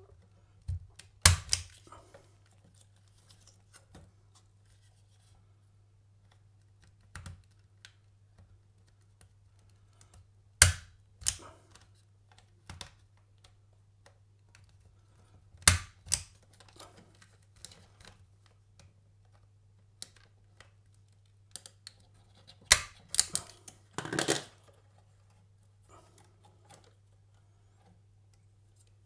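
Spring-loaded punch-down tool seating Cat6 wires into the slots of an RJ45 keystone module. Sharp snaps come a few seconds apart, four of them loud, with lighter clicks and wire handling between, and a short rustle of wires near the end.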